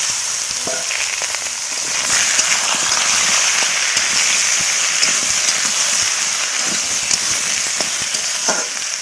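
Chopped bottle gourd sizzling loudly in hot oil in a kadai, just tipped into the tempered oil, with scattered light crackles.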